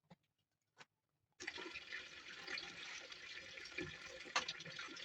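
Water running or pouring, starting suddenly about a second and a half in, after two light clicks.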